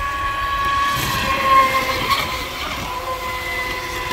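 Pro Boat Recoil 2 RC boat's brushless electric motor running at speed: a steady high whine, over the hiss of its hull and spray on the water.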